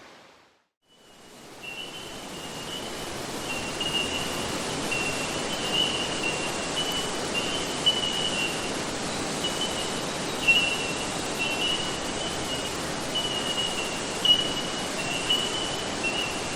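Rainforest ambience fading in after a second of silence: a steady rushing hiss, like running creek water or rain, with a high, wavering trill running through it.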